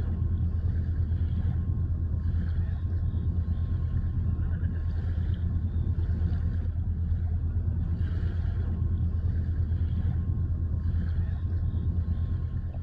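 Steady low rumble of wind buffeting a phone microphone at the water's edge.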